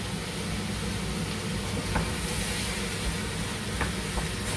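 Pumpkin, leek and other vegetables sizzling in a pot as they sweat in fat, over a steady low hum, with a few light clicks in the second half.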